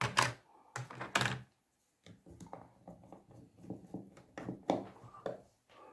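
Metal drive bracket and small screws being handled and screwed onto a laptop SSD: a few sharp knocks in the first second and a half, then a run of light, irregular clicks and ticks.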